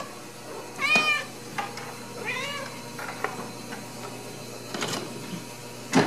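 A Ragdoll cat meowing: one loud meow about a second in and a fainter one about two and a half seconds in. A sharp knock near the end.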